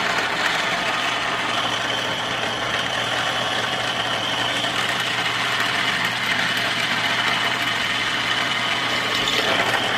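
Electric drill motor running steadily with an even whine as a split-point bit drills into PVC pipe.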